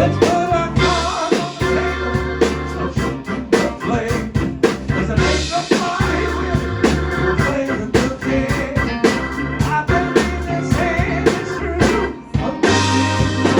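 Live blues band playing: electric guitar, Hammond organ, bass and drum kit, with a voice singing over them.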